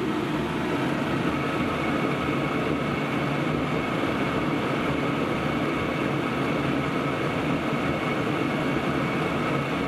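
Chinese 2 kW diesel air heater running steadily: the roar of its burner and blower fan with a faint whine on top. This is the combustion noise it makes when its fuel pump is turned down to about 2 Hz, where it runs rough; at 3 Hz or more it makes no such noise.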